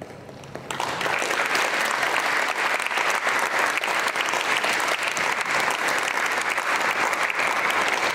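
Audience applauding, breaking out suddenly under a second in and holding steady.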